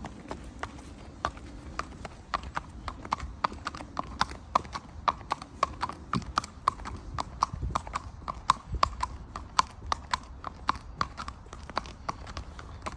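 Hooves of an Irish Draught x Thoroughbred mare clip-clopping on a tarmac road at a walk: a steady rhythm of sharp strikes, three or four a second.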